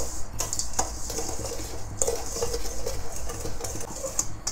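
A utensil stirring dry white and brown sugar in a stainless steel bowl: a gritty rasp of sugar grains on the steel with irregular scrapes and light clinks against the bowl.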